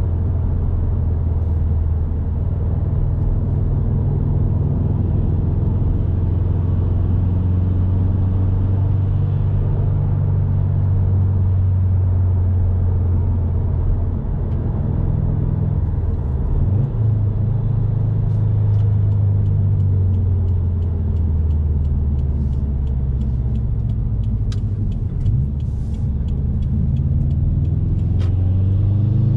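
Subaru WRX STI's turbocharged flat-four engine, fitted with an aftermarket intake and tune, running steadily while driving. Its pitch dips briefly and then picks up again about halfway through, and a string of faint light clicks comes in during the second half.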